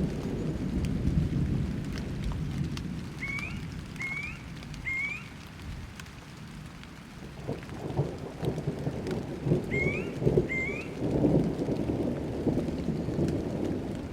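Rain falling with thunder rumbling low and rolling, swelling again in the second half. Five short rising chirps sound above the storm, three and then two.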